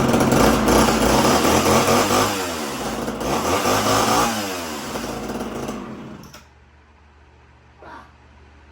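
Homelite two-stroke chainsaw running at high revs, the revs falling and rising again twice through the middle, then settling lower before the engine cuts off about six seconds in.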